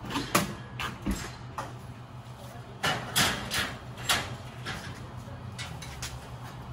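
Metal clanks and rattles from the steel can columns and rack of an open Vendo 720 drink machine as they are handled: a string of sharp knocks, loudest about three seconds in, over a steady low hum.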